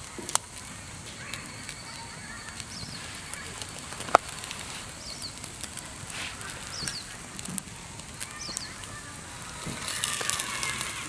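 Wood campfire crackling with scattered pops and one sharp loud snap about four seconds in.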